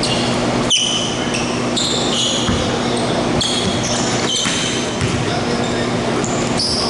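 Basketball game on a hardwood court: the ball bouncing and sneakers squeaking again and again in short high squeals, over the echoing din of a gym with voices.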